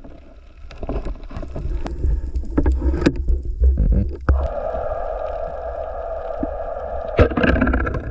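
Scattered knocks against a low rumble aboard a small boat. About four seconds in, a steady hum starts and carries on, with a sharper knock near the end.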